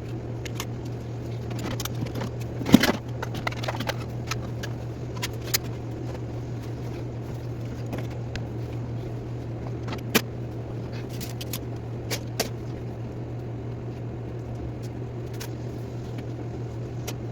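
Scattered clicks and knocks of toys and household items being picked up and handled, the loudest about three seconds in and another about ten seconds in, over a steady low hum.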